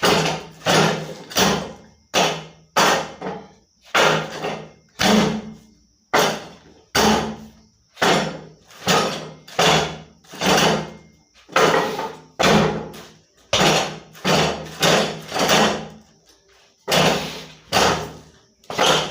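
Wing Chun wooden dummy (mook jong) being struck in a training sequence: a continuous run of hard wooden knocks, often in quick pairs or triplets, each dying away quickly, with a short pause about three-quarters of the way through.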